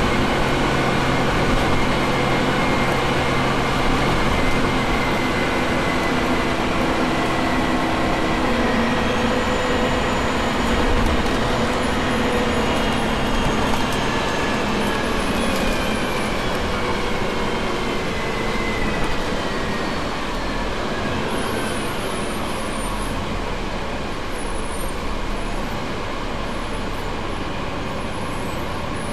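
Double-decker bus running in service: its engine and gearbox drone with a steady hum at first, then a thin whine that slides in pitch through the middle as the bus changes speed.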